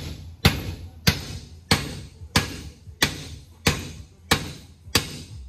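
Steady hammering: eight evenly spaced hammer blows, about one and a half a second, each with a short ringing decay, struck on the BMW E92 M3's removed rear subframe and differential assembly.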